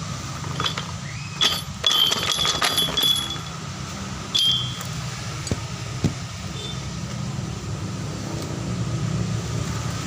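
Metal parts clinking and jangling in a cluster of strikes with a short ringing tone, then one more clink a little later, over a steady low hum.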